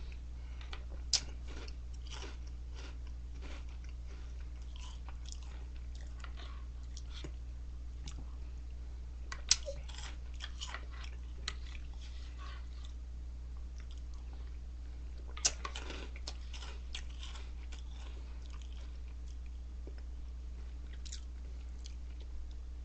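Close-up crunchy chewing of Reese's Puffs cereal, coming in bouts, with three sharp loud clicks, about a second in, near the middle and about two thirds through. A steady low hum runs underneath.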